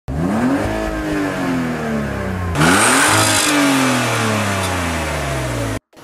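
BMW car engine revved twice while parked: the pitch climbs quickly and then falls back slowly. The second rev, about two and a half seconds in, is louder. The sound cuts off abruptly near the end.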